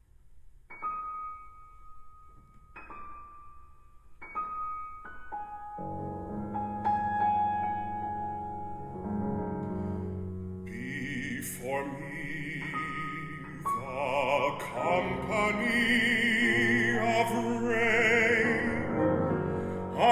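Art song for baritone and piano: the piano opens with sparse, separated high notes that build into fuller chords, and about halfway through a baritone voice enters, singing with a wide vibrato over the piano.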